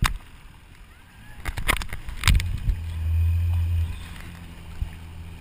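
A few sharp knocks, then a small watercraft's engine comes in a little over two seconds in and runs with a low steady hum, loudest for about a second and a half before settling lower.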